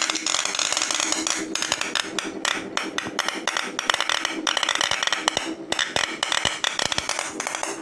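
Homemade CNC electrical discharge machine sparking: a copper electrode arcing against an aluminum workpiece under water, a dense continuous crackle of rapid snapping clicks with a few brief breaks.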